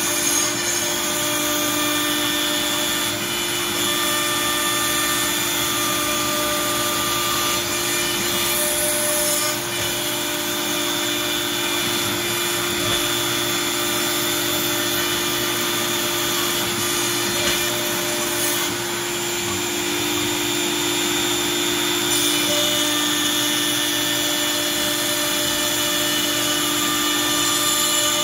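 CNC router spindle cutting 1/2-inch MDF while dust collection draws air through the brush dust shoe: a steady whine over a rushing hiss.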